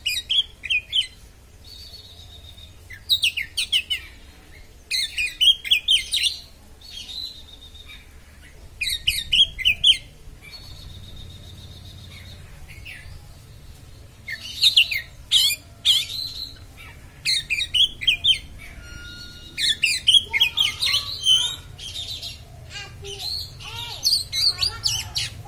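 Oriental magpie-robin (kacer) singing in the fast, sharp 'konslet' style: bursts of about a second of rapid, jumbled high notes, repeated every few seconds, with the phrases coming thicker near the end.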